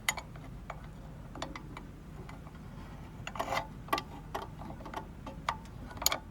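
Irregular clicks and taps of small metal and plastic parts as the on/off timing pins are fitted onto the dial of a clock-driven mechanical light timer.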